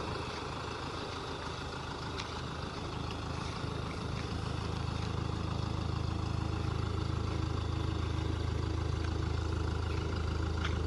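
Hyundai Terracan SUV engine running steadily at idle, low-pitched, growing slightly louder about four seconds in.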